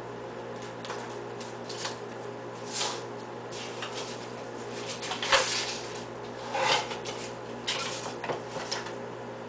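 Cooked rice dropping into a clear plastic tub: soft, irregular rustling patters, several in all, the strongest a little past halfway and again about a second later, over a steady electrical hum.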